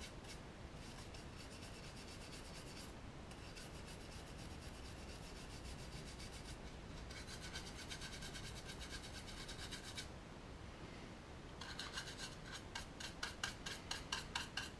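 A nearly dry paintbrush scrubbed quickly back and forth over a model wagon body, dry brushing enamel paint for weathering. Faint, rapid scratchy strokes come in several runs, with short pauses about three, six and ten seconds in.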